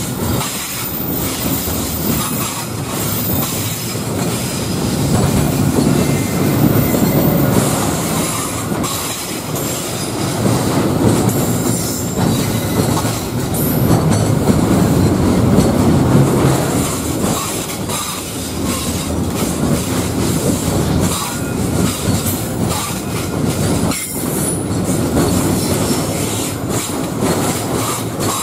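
Container freight train's wagons rolling past close by: a continuous rumble of steel wheels on the rails with repeated clicks as the wheels cross rail joints, swelling and easing as the wagons go by.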